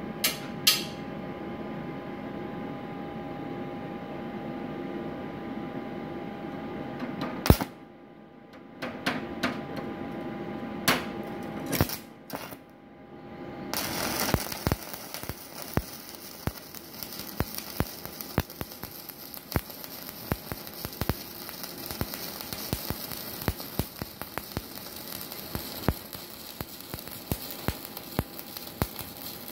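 Stick-welding arc from a 4 mm LB-52U electrode on an IGBT inverter welder at about 150 A. A steady hum and a few sharp clicks and taps come first as the electrode is struck against the work. About 14 seconds in, the arc catches and crackles continuously without going out.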